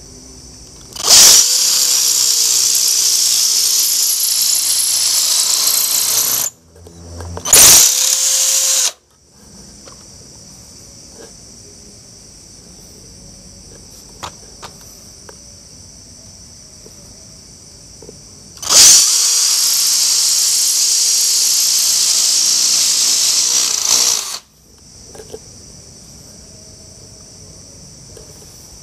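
A 12-volt cordless drill run on a homemade 24-volt battery pack, boring into a plastered masonry wall. It runs three times with a steady motor whine: about five seconds, then a short burst of a second or so, then about five seconds more.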